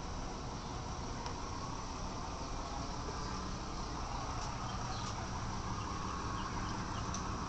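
Steady outdoor background noise: a low, engine-like rumble with faint short high chirps a few times near the end.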